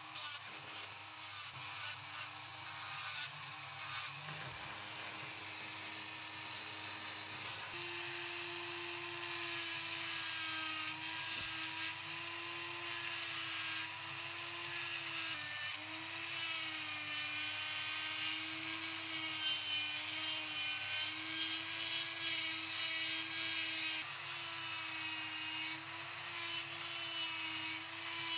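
Handheld high-speed rotary tool with a small sanding drum, sanding and shaping carved wood: a steady motor whine with a hiss of abrasive on wood. The whine's pitch wavers and dips slightly as the drum is pressed into the wood.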